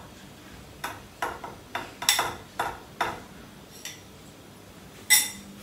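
A spoon clinking against a glass bowl as grated cheese is scraped out of it into a saucepan: about ten light knocks in quick succession, then one more near the end.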